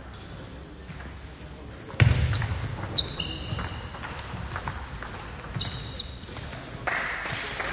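Sports-hall sounds between table tennis shots: a sudden loud thud about two seconds in, then scattered clicks and short high squeaks like shoes on the hall floor, with some voices.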